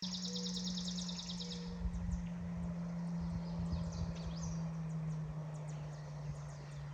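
A songbird's rapid, even trill for about the first two seconds, over a steady low hum that slowly sinks a little in pitch. Irregular soft thuds of footsteps on the trail run beneath.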